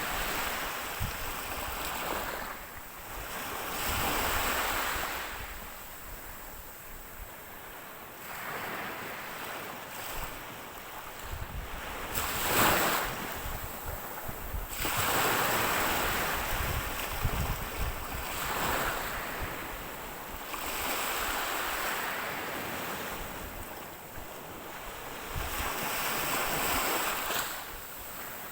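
Sea waves breaking and washing up the shore, the surf swelling and ebbing every few seconds, with one sharper, louder crash about halfway through.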